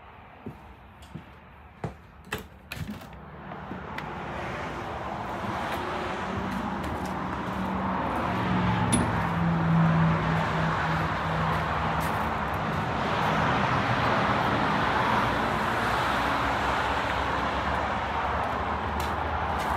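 A few sharp clicks and knocks, then steady road-traffic noise that rises over several seconds and stays loud, with a vehicle engine's low hum in the middle.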